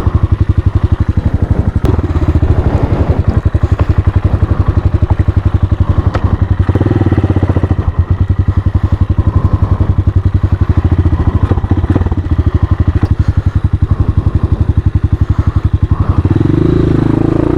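Hawk 250 dual-sport motorcycle's single-cylinder four-stroke engine running at low revs under way, with a rapid, even firing pulse and a few sharp knocks and clatter. The revs rise near the end.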